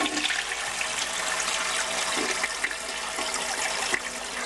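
Water rushing steadily with fine splashing and crackling, like a flush of water running down a drain.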